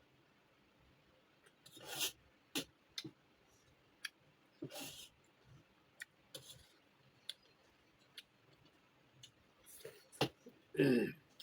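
Close-miked mukbang eating: scattered mouth clicks, lip smacks and a few short crunching chews of crunchy food, with a brief sound of the voice near the end.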